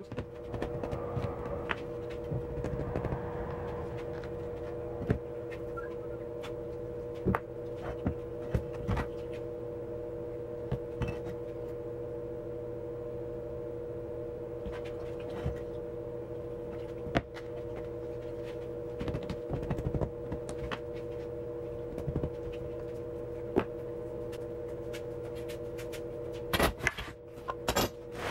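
Steady workshop hum with scattered sharp clicks and knocks from tools being handled at the bench, and a quick run of clunks near the end as metal pipe clamps are set down.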